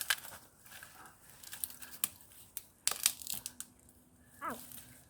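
Dry dead wood and leaf litter rustling and crackling as it is handled, with several sharp, irregular snaps of twigs. A short falling cry sounds near the end.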